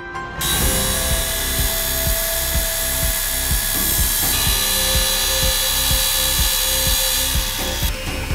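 Power tools working wood over background music with a steady beat: a Makita cordless track saw cutting timber, changing near the end to a Makita 18 V random orbital sander running.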